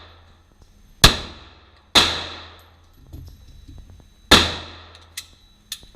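Three 9mm pistol shots from a Smith & Wesson M&P, two about a second apart and the third after a longer pause, each followed by the ringing echo of an indoor range. Two fainter sharp clicks come near the end.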